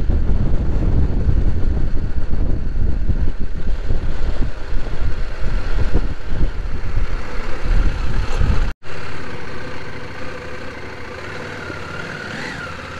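CFMoto 800 parallel-twin motorcycle running on the road, mixed with a heavy, uneven low rumble of wind on the microphone. About 9 seconds in the sound cuts out for an instant and returns much quieter and steadier.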